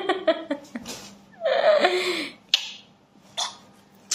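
Light laughter and short vocal exclamations from a woman and a young boy, with a few sharp clicks in the second half.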